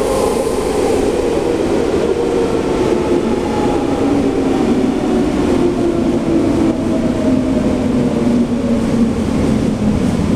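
Medellín Metro train running alongside a station platform, its electric motor whine falling steadily in pitch as the train slows, over a steady rumble of wheels on rail.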